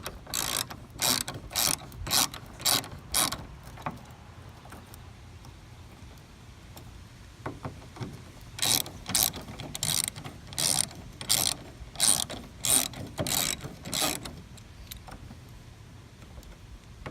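Hand ratchet with a T50 Torx bit backing out door hinge bolts: quick runs of ratchet clicks, one run per swing, about two to three a second. The clicking stops for several seconds about four seconds in, then starts again in a second run.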